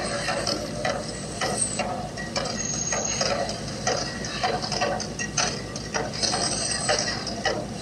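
Volcano show eruption effects: a dense, crackling, clattering noise over a steady low hum, as fireballs flare.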